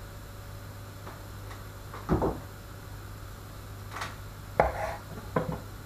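Kitchen knife knocking on a wooden chopping board while cutting the hard skin off a slab of bacon: four separate knocks, the first about two seconds in and three more close together near the end.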